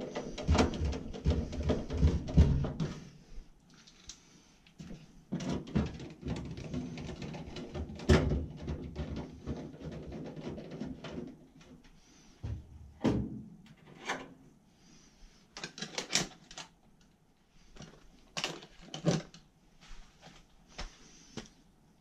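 Handling noise from work on furnace wiring and small parts: rustling, clicks and light knocks in scattered clusters with short quiet gaps.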